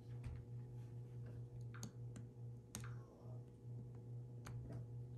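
Scattered light clicks of small tools and tiny screws being handled while a Samsung Galaxy S8 is taken apart, over a steady low hum.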